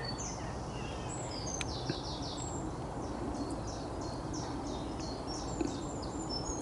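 Several small birds singing in woodland: many short, high notes repeated in quick series, over a steady low background noise.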